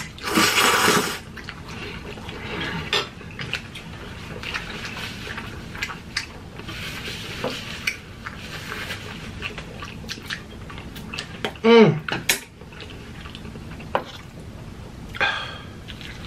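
Mukbang eating sounds: a loud slurp of ramen noodles at the start, then forks and chopsticks clicking and scraping against an aluminium sheet pan, with a short vocal sound from one of the eaters about 12 seconds in.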